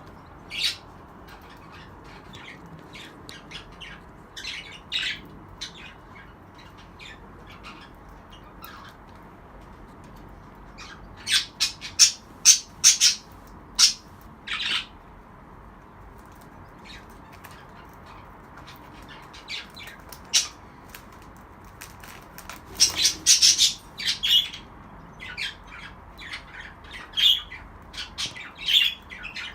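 Budgerigars chirping and squawking in short, sharp calls, with two busier spells: about eleven seconds in and again from about twenty-two seconds on.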